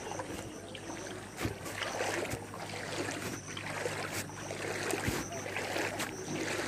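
Floodwater sloshing and splashing in surges about once a second as someone moves through it, with a few sharp clicks and a faint steady low hum underneath.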